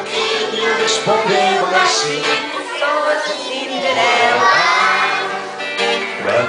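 Young children singing a song together, accompanied by an acoustic guitar.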